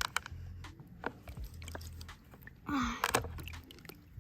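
Toys being handled during doll play: scattered sharp clicks and knocks, with a short hiss a little under three seconds in.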